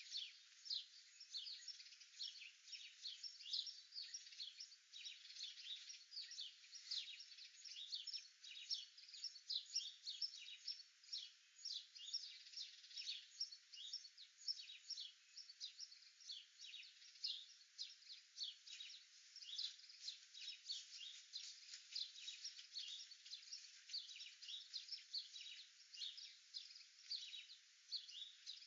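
Small birds chirping, a faint, steady stream of short high chirps, several a second.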